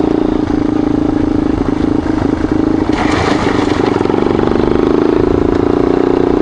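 Yamaha XT dual-sport motorcycle engine running steadily while riding a gravel road, with a short rush of hissing noise about three seconds in.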